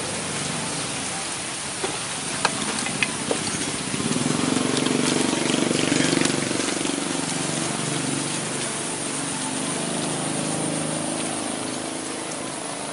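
Electric belt sander running, with a few sharp clicks a couple of seconds in, then a louder grinding stretch of several seconds as the hatchet's steel is pressed against the belt.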